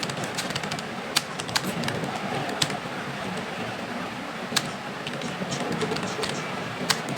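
Keyboard keys clicking at an irregular pace, a few sharp taps a second, some louder than others, over a steady background murmur.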